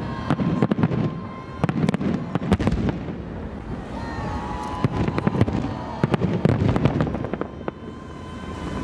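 Fireworks display: shells bursting with low booms and dense, rapid crackling and popping, easing off briefly about three seconds in and again near the end.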